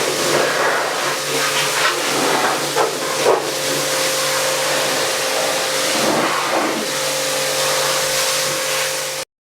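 Loud, steady hiss of pressurised spraying, with a steady machine hum beneath it and a few brief surges. It cuts off abruptly near the end.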